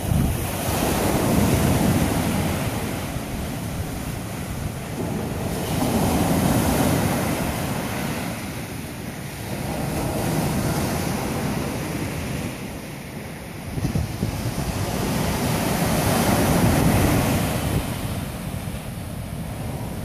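Atlantic surf breaking on a sandy beach, its rushing wash swelling and fading about every four to five seconds as each wave comes in.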